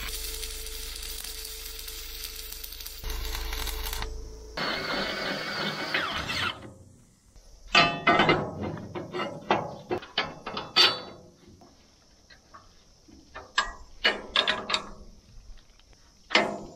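Electric drill running as it bores through a steel angle bracket, followed by a socket ratchet clicking in short runs as a bolt is tightened through the bracket.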